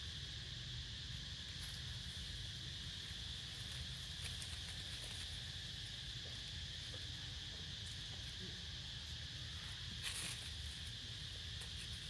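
A steady high-pitched drone of insects over a low rumble, with one brief sharp noise about ten seconds in.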